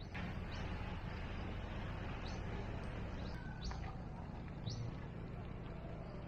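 Birds chirping in short, high, rising notes, repeated every second or so over a steady outdoor background hiss.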